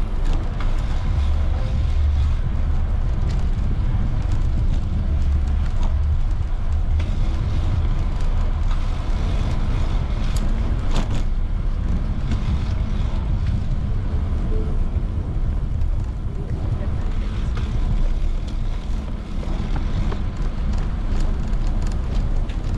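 Wind rumbling steadily on the microphone of a camera riding on a moving bicycle, with people's voices in the background.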